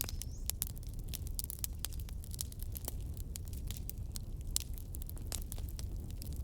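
Wood fire crackling in a fireplace: many irregular sharp pops and snaps over a steady low rumble of the flames. At the very start one louder pop is followed by a brief thin whistle.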